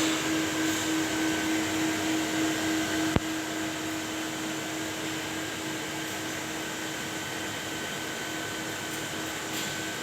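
Steady machine hum with a constant low tone and a fainter high whine, like a motor or fan running. A single sharp click comes about three seconds in, after which the hum is slightly quieter.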